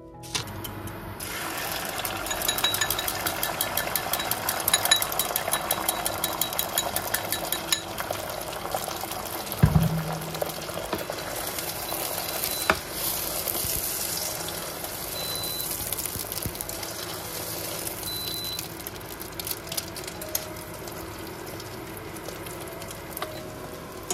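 Beaten egg with green onion sizzling and crackling as it fries in oil in a nonstick pan, starting within the first second and loudest over the following several seconds before settling to a steadier sizzle. A dull thump comes about ten seconds in and a sharp click a few seconds later.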